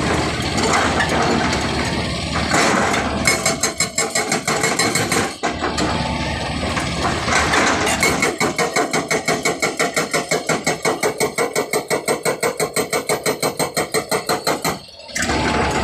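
Hydraulic rock breaker on a JCB JS205 tracked excavator hammering rock, over the machine's running engine. About halfway through the blows settle into a fast, even rhythm of several a second, then stop abruptly near the end.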